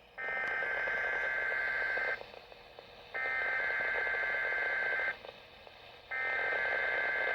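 SAME digital header bursts (EAS data tones) on a weather radio broadcast: three raspy, warbling two-tone bursts of about two seconds each, a second apart, with faint radio hiss between them. They carry the Required Weekly Test code that triggers alert-equipped weather radios.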